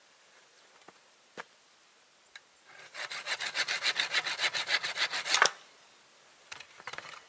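Hand saw cutting through wood in a quick, even run of strokes, about seven a second, for roughly three seconds, then stopping. A few light knocks and rustles come before and after.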